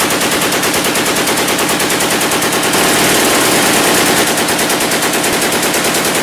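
Light machine gun firing one long, unbroken burst of automatic fire: a rapid, even stream of shots.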